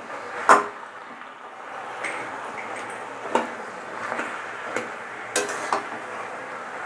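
A spatula stirring and scraping in a metal karahi of spinach and fish head, knocking on the pan about six times at uneven intervals, the loudest about half a second in, over a steady low sizzle from the pan.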